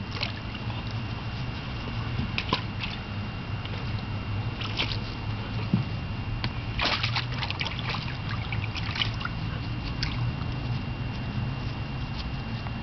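Water sloshing and splashing in a shallow plastic kiddie pool as a large Newfoundland dog steps and paws about in it, in several short splashes over a steady low rumble.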